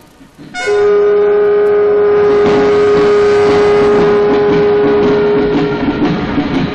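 Film score music: a loud, steady sustained note with many overtones comes in about half a second in and holds for about five seconds, over a busier musical background that carries on after it.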